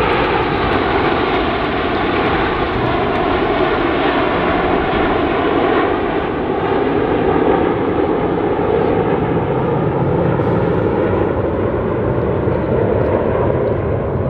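A formation of RAF Red Arrows BAE Hawk jets with an RCAF CF-18 Hornet flying past. It is a steady, loud jet noise whose tone shifts slowly as they pass.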